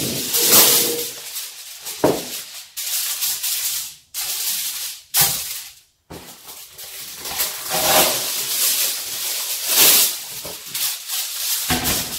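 Aluminium foil crinkling and rustling as a sheet is spread and pressed into a metal oven tray, in irregular crackly rustles with a couple of short breaks.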